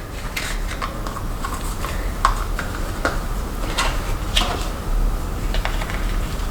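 Irregular light clicks and taps, about one or two a second, from small objects being handled, over a steady low hum.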